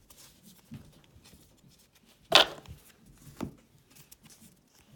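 Trading cards being handled and flipped through, with one sharp snap or tap a little over two seconds in and a softer one about a second later.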